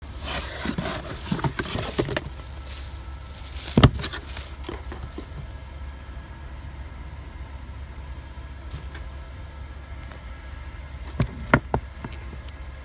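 Handling noise while unpacking: rustling of cardboard and packing for about two seconds, then a single sharp knock as the iPhone box is set down on the desk a little under four seconds in. Near the end come three quick light knocks as the box is handled again, over a steady low hum.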